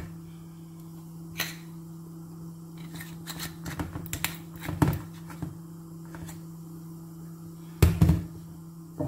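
Kitchen items handled at the stove: scattered knocks and taps, loudest in a short cluster near the end, over a steady low hum.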